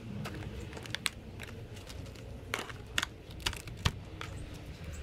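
Stiff dried aku (skipjack tuna) strips being handled and dropped into a plastic tub: scattered sharp clicks and clacks at irregular intervals, the loudest in the second half, over a steady low rumble.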